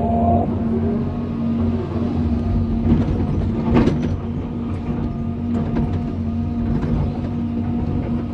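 John Deere 350D excavator's diesel engine running steadily under load, heard from inside the cab, with a higher hydraulic whine that stops about half a second in. Two short knocks come around three and four seconds in as the bucket swings and digs.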